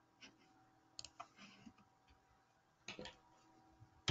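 Faint, scattered clicks of a computer mouse and keyboard, a few spread over several seconds, with a sharper click at the very end.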